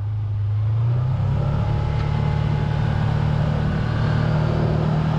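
Can-Am Commander 1000 side-by-side's V-twin engine accelerating: the revs climb over about the first second and a half, then hold steady as it drives along.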